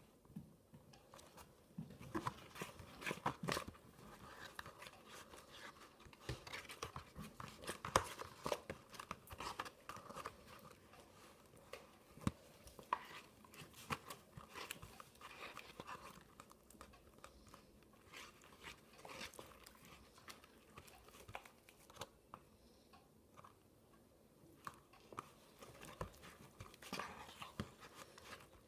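Homemade glue-and-borax slime being stirred and kneaded by hand in a paper bowl: faint, irregular sticky clicks.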